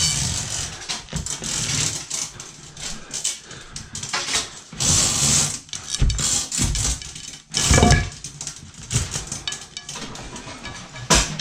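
Handling noise from fitting a blind to its brackets: scattered clicks and knocks, with louder scraping, rustling passages about five and eight seconds in.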